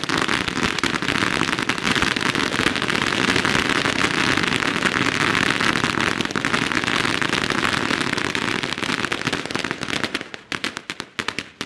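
A long string of firecrackers going off in a rapid, continuous crackle of bangs. Near the end it thins into scattered single pops.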